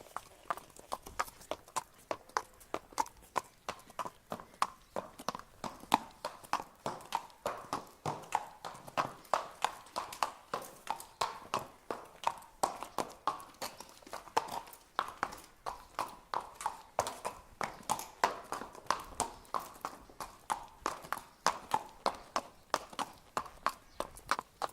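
Horse walking: steady clip-clop of hooves on the ground, about two to three hoofbeats a second in an even rhythm.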